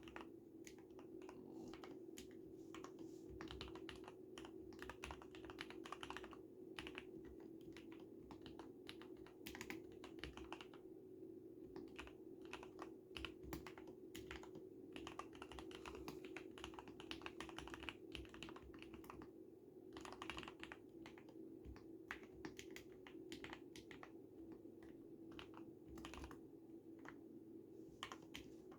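Typing on a modded Akko x Ducky ZERO 3087 mechanical keyboard with lubed 45 g Cherry MX Red linear switches, dampened by a type mod and soundproofing layers: a quick, irregular run of soft keystroke clacks with a brief lull about eleven seconds in, over a steady low hum.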